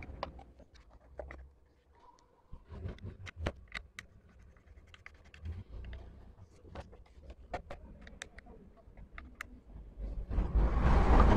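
Small clicks, taps and scrapes of plastic and metal parts being handled as a motorcycle headlight and turn-signal indicators are fitted. About ten seconds in, a much louder rumbling noise swells up and covers them.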